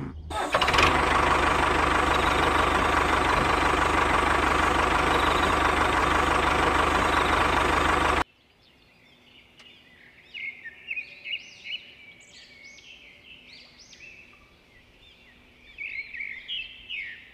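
A steady engine running sound for the model tractor as it drives, which cuts off suddenly about eight seconds in. After that, birds chirp faintly.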